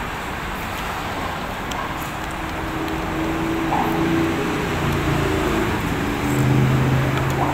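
Steady road traffic noise with a low engine drone, which grows louder about six seconds in.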